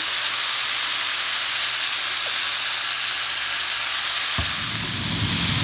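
Sliced mushrooms, peppers and onions sizzling in a hot frying pan as they are sautéed with a spatula. About four seconds in, a sharp knock, and a low rumble joins the steady sizzle.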